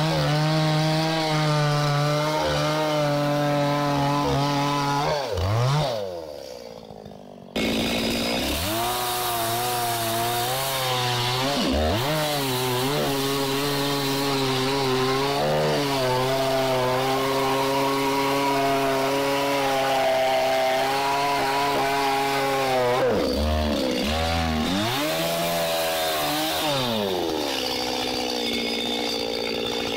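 Chainsaw running at full throttle, cutting through a felled pine log (bucking it into lengths). Its pitch dips and recovers several times as the chain works in the wood; about six seconds in it drops away briefly before running again, and it falls toward idle near the end.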